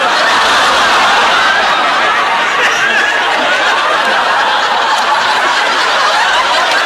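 Studio audience laughing loudly together, a sustained wave of crowd laughter that swells in at once and holds steady.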